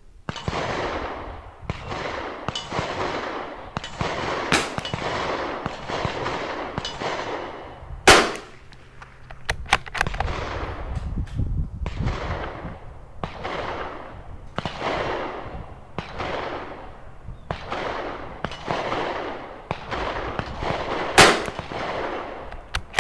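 Single shots from a .22 LR rimfire target rifle, sharp cracks spaced several seconds apart, the loudest two about 8 and 21 seconds in. Between them runs a steady series of swelling, fading rushes of noise about a second long each.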